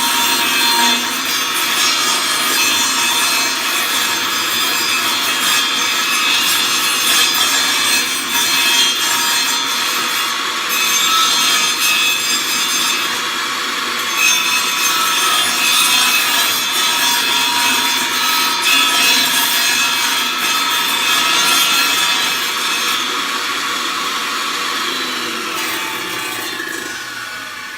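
Table saw blade shaving the edge of a wooden disc as it is turned slowly into the blade on a circle-cutting jig, a steady rasping cut. Near the end the noise fades with a falling whine as the blade spins down.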